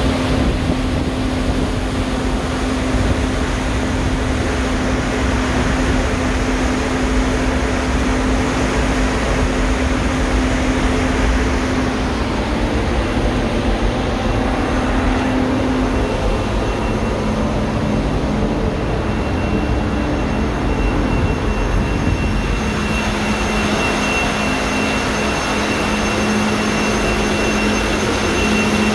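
The Algoma Innovator's engine and machinery running steadily at full sea speed: a loud, constant drone with a steady low hum and a deep rumble underneath.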